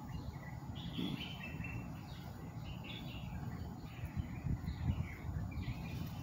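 Small birds chirping and twittering in the background, in short repeated bursts, over a low steady rumble.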